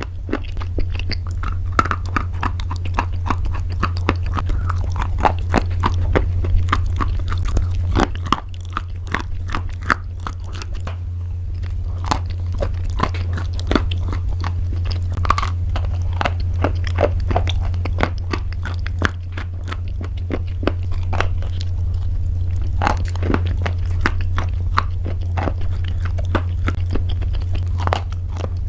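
Close-miked biting and chewing of crunchy pasta: a dense run of sharp, irregular crunches throughout, over a steady low hum.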